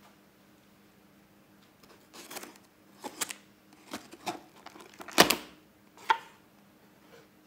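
Folding knife slitting the paper seal sticker on a cardboard camera box, with the box and knife being handled: a run of short scrapes and clicks, the loudest a single knock a little past the middle.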